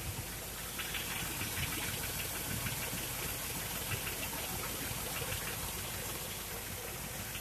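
A GM 6.0-litre LS V8 idling steadily with a fast, light ticking from the valvetrain over it: the lifter tick these engines are notorious for, heard on a cold start.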